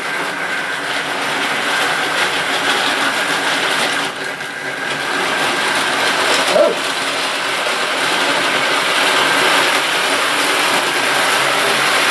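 OO gauge model train running around the layout, a model locomotive hauling old Tri-ang coaches: a steady whirr of the motor and the wheels rolling on the rails, with a single sharp click about six and a half seconds in.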